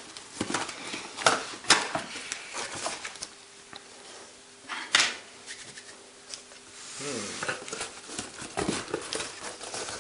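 Packaging being handled during an unboxing: irregular rustling with many sharp clicks and knocks, the loudest about five seconds in.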